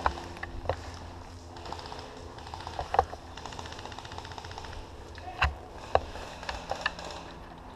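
Scattered sharp clicks and knocks at irregular intervals, about a dozen, the loudest about three, five and a half and six seconds in.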